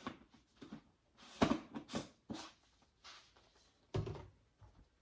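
Plastic supplement tubs and a shaker bottle being handled on a countertop: a few separate knocks and scrapes, the loudest about a second and a half in, then a dull thunk about four seconds in.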